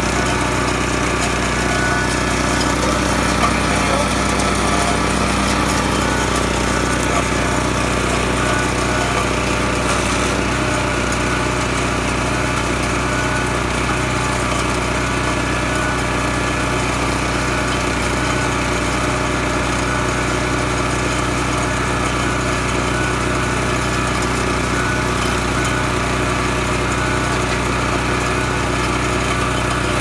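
Italegna IGC70 wood chipper's 7 hp petrol engine running steadily at constant speed.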